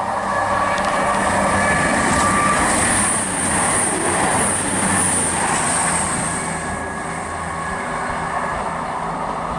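CrossCountry Voyager diesel multiple unit passing through a station without stopping: its underfloor diesel engines run under a wash of wheel-on-rail noise that peaks about two to three seconds in, then fades as the train draws away.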